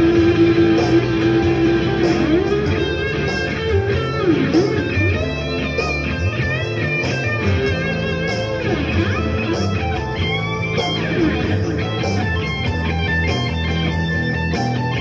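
Electric guitar playing a blues lead with bent notes over a backing with a steady beat.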